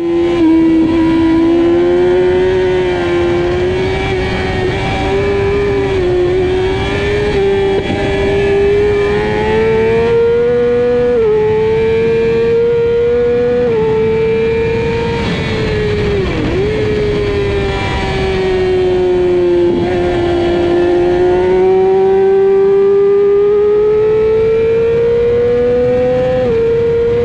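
Onboard sound of a 600cc sportbike engine at full race pace, its pitch climbing through the revs and stepping down at gear changes, with a sharp dip and recovery about sixteen seconds in. Heavy wind rush on the camera runs under it.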